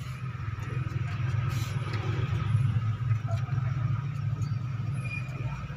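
A machine running with a steady low rumble and a faint, steady high whine.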